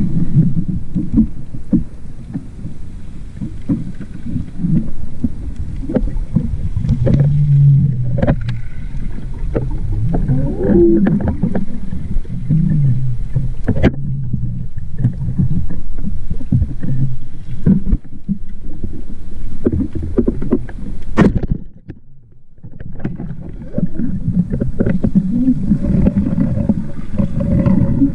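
Muffled rush and rumble of water around a submerged action camera as a spearfisher swims and dives, with scattered knocks and clicks. A sharp snap about three-quarters of the way through is followed by a brief lull.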